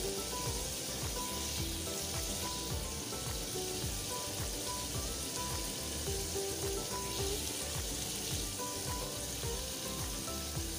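Palm oil and tomato sauce sizzling steadily as it fries in a pot, with soft background music.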